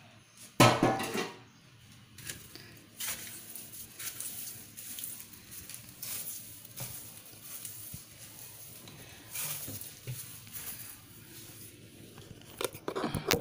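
Soft grass broom (walis tambo) sweeping stairs: irregular soft brushing swishes, with a short loud burst about half a second in.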